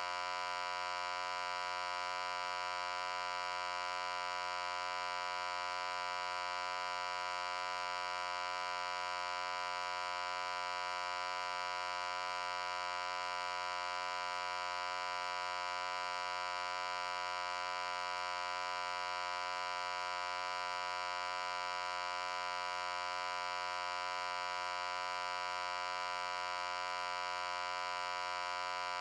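A steady, unchanging buzzy hum: one fixed tone with many overtones, strongest in the middle range, played continuously as an annoying noise.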